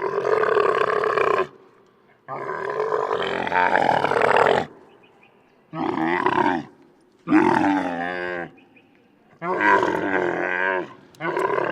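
A camel grunting loudly in a series of about six drawn-out, pitched calls, each one to two seconds long with brief pauses between; the longest comes a few seconds in.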